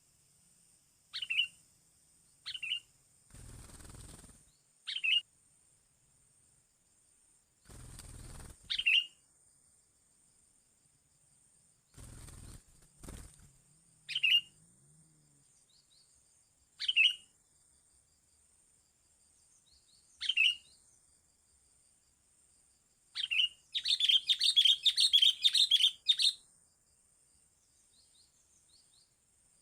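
A small bird gives short, sharp chirps every two to four seconds, then breaks into a rapid, loud chattering burst for about three seconds near the end. Three brief low rumbles, like wind or handling on the microphone, come in the first half.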